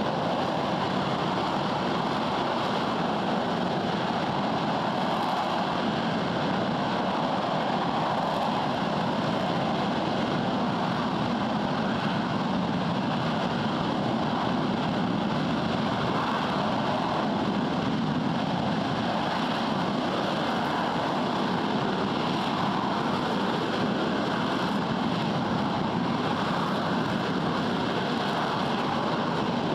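RS-25 liquid-hydrogen/liquid-oxygen rocket engine firing at steady thrust on the test stand: a loud, even rush of noise that holds constant without any change in level or pitch.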